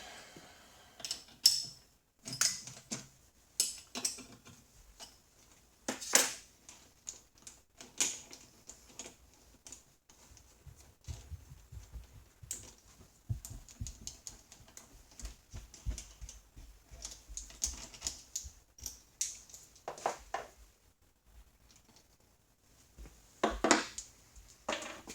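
Irregular clicks, clinks and knocks of small steel parts being handled: vise clamps, T-nuts and studs taken off and fitted on a milling machine table, with a few louder metal clanks.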